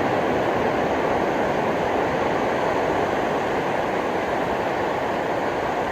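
Steady ocean surf: a continuous wash of breaking waves, even in level throughout.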